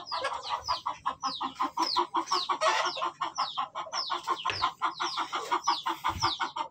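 A flock of aseel chickens clucking rapidly and continuously, with many high, quick falling peeps over the clucking.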